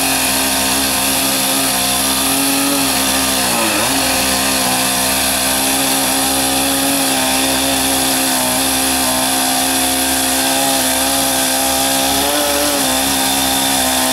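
A small engine running steadily at high speed, dipping briefly in pitch twice as if under load, typical of firefighters' gas-powered equipment such as a saw or ventilation fan at a house fire.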